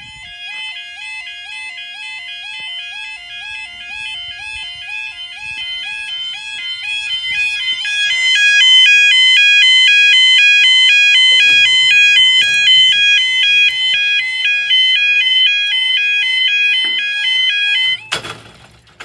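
Newly fitted UK level crossing alarm sounding a fast warbling electronic two-tone yodel, growing louder over the first several seconds. It cuts off suddenly near the end, with the barriers down, and a brief thump.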